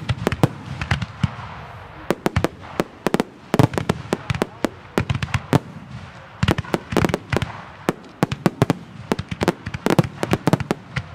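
Aerial firework shells bursting in rapid salvos: clusters of sharp bangs and crackles, with brief lulls between salvos.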